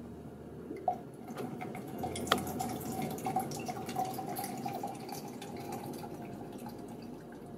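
Soy sauce poured from a glass bottle into a plastic beaker, a steady trickle of liquid into the vessel. Two sharp clicks come about one and two seconds in, the second the loudest sound.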